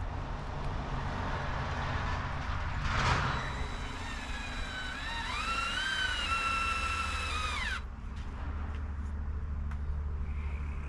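Cordless drill driving a deck screw: its whine rises in steps, holds for about three seconds, then drops and stops as the trigger is let go. A steady low hum runs underneath, with a brief scrape about three seconds in.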